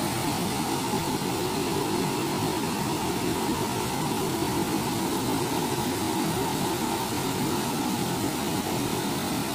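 Steady rush of water pouring down a rock face in a small waterfall, churning white water at close range.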